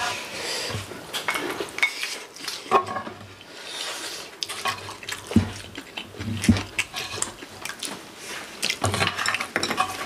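Metal spoons scraping and clinking against a pan of fried rice, in irregular strokes as the rice is scooped up.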